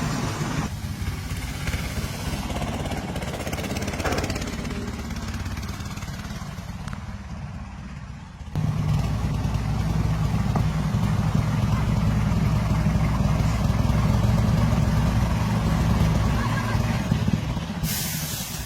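An engine running steadily, becoming clearly louder about eight and a half seconds in.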